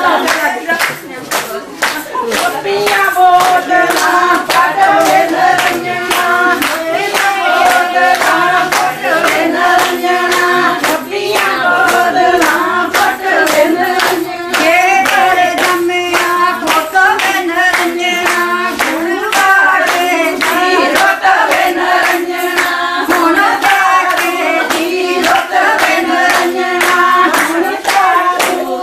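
A group of women singing Punjabi boliyan together over steady rhythmic hand clapping, the clapping and singing of a gidha dance.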